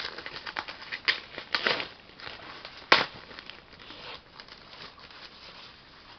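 Packaging rustling and crinkling as a boxed toy figure is worked loose and pulled out, with scattered clicks and one sharp snap about three seconds in.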